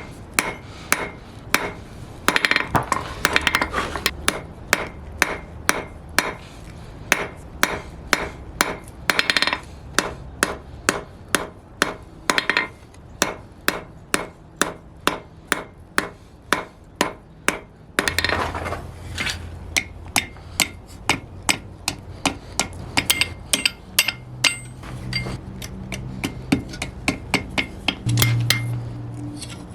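Hand hammer striking hot mild-steel flat bar on an anvil, a steady run of sharp blows at about two to three a second, each with a short metallic ring.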